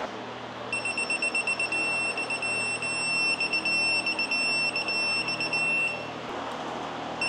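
Electronic torque wrench beeping as it is pulled up on an oil pan bolt. Rapid high beeps run into a steady tone, which breaks into beeps again and stops about six seconds in. The steady tone is typical of the wrench signalling that it is at or near its set torque.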